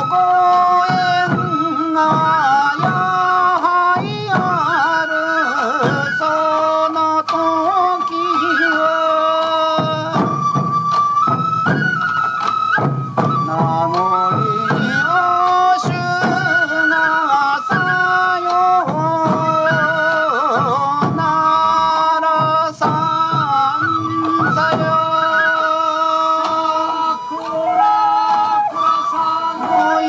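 Sansa odori music: bamboo transverse flutes (fue) playing a sustained melody over a steady beat of waist-slung sansa taiko drums struck by the dancers.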